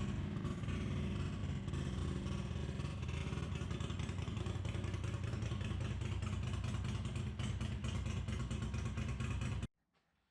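Ducati bevel-drive air-cooled 90-degree V-twin engine running steadily, with a dense mechanical clatter over the exhaust note. It cuts off suddenly near the end.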